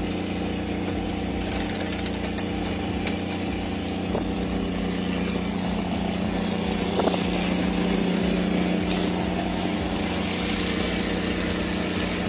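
Machinery on a squid jigging boat: a steady engine drone under the automatic jigging machines as their reels haul the jig lines, with scattered light clicks and knocks and a sharper knock about seven seconds in.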